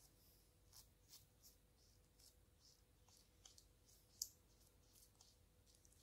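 Faint, irregular sticky clicks and small pops of slime squeezed under fingertips into a cactus-shaped tray cavity, a few a second, with one sharper click about four seconds in.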